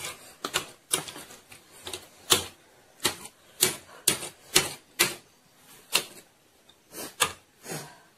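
Close-up eating sounds as instant noodles are eaten: a run of sharp, irregular clicks and smacks from mouths and forks, about two a second.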